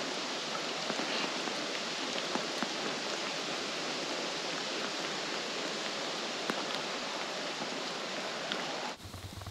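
Steady hiss of rain with scattered drop ticks, cutting off suddenly near the end.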